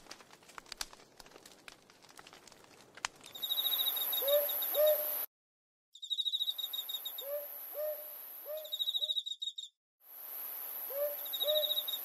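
A wood fire crackling with many small pops for the first few seconds. Then an owl hooting in short runs of three or four notes over steady insect trilling, which cuts out abruptly twice, as in an edited night-ambience track.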